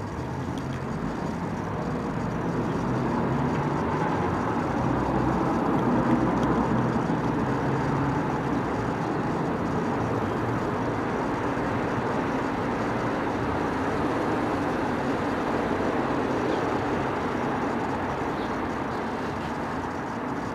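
Steady background rumble and hiss that swells slightly over the first few seconds and then holds level, with no distinct events; the watch's ticking is not heard.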